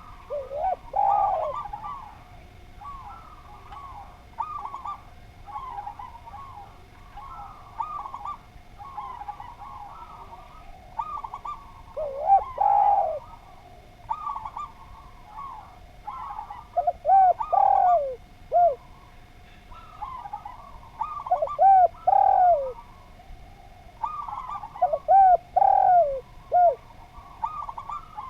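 Spotted doves (derkuku) cooing in repeated short phrases, one loud and close, with a fainter dove cooing steadily behind it. A faint steady hum runs underneath.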